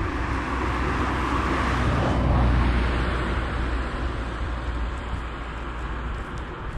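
Wind rushing over a handlebar-mounted camera's microphone as a mountain bike rolls along, a steady low rumble with a hiss above it that swells about two seconds in and then eases off.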